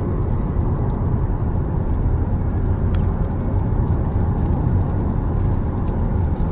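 Steady low rumble of road noise inside a moving car's cabin on a highway.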